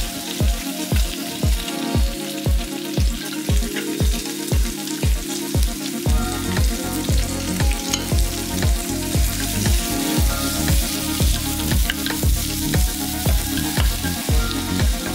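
Pork belly sizzling in oil in a frying pan, then stir-fried with chopped chives and garlic using a wooden spatula. Background music with a steady beat plays over it, its bass growing fuller about six seconds in.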